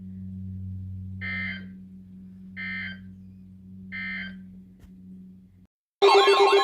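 Emergency Alert System end-of-message code: three short, identical data bursts about 1.4 s apart, signalling the end of the alert, over a steady low hum. Near the end the hum cuts out, and a loud wavering siren-like tone starts suddenly.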